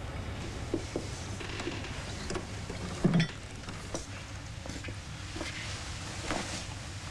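Bar-room background with a steady low hum, scattered light clicks and knocks, and one heavier thump about three seconds in.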